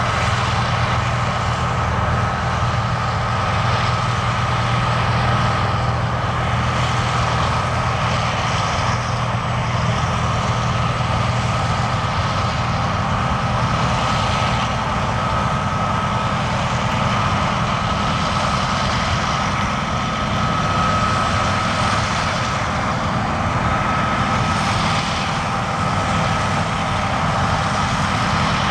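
Heavy John Deere harvest machinery running steadily under load, a low diesel engine sound with a thin steady whine above it.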